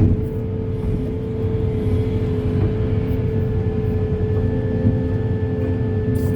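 Heavy earthmoving machine's diesel engine running steadily under load, a low rumble with a steady whine above it.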